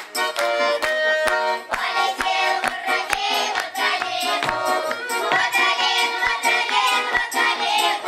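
Russian folk round-dance song played on accordion, with sharp beats keeping a steady pulse about twice a second. Children's voices sing along from about two seconds in.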